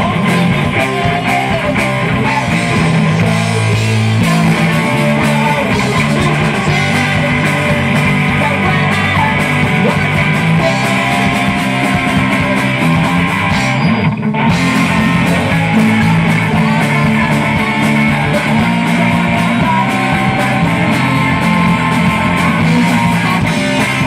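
Rock band playing live, with electric guitar to the fore and a steady beat, broken by a split-second gap a little past halfway through.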